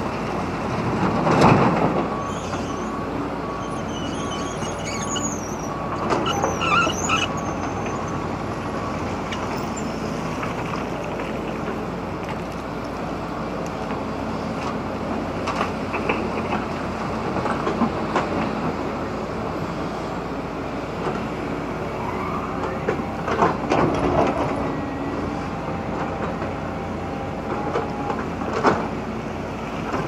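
CAT 320D excavator's diesel engine running steadily under working load, with several louder clattering surges as soil and rock are dumped into a tipper truck's bed and the bucket digs into the spoil pile.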